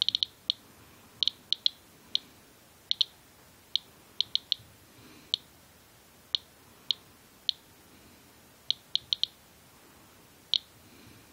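Inspector USB Geiger counter clicking at random, irregular intervals, about two short high clicks a second, each one a detected radiation count. The rate is well above the usual background of about 40 counts a minute; the owner takes it for something radioactive on the coat hood.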